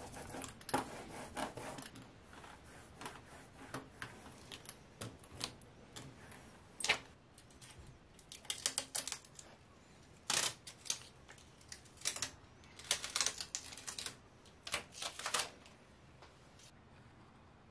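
Hand rubber brayer rolling tacky oil-based printing ink onto a copper engraving plate for a relief roll-up, crackling with each pass in repeated short bursts, trailing off near the end.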